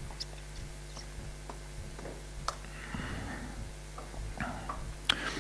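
A few faint, scattered keystrokes on a laptop keyboard, as a terminal command is finished and entered, over a steady low hum.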